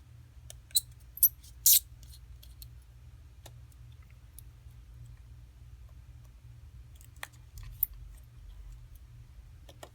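Sparse sharp clicks and taps of a small screwdriver and metal screws on an iPhone 4S being taken apart, three louder ones in the first two seconds and a few fainter ones later, over a low steady hum.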